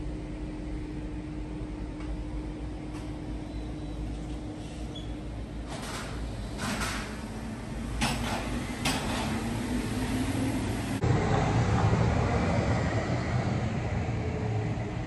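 A sliding balcony door being handled and slid open, with a few knocks and scrapes. About eleven seconds in the sound suddenly opens out into a louder, low rushing outdoor ambience.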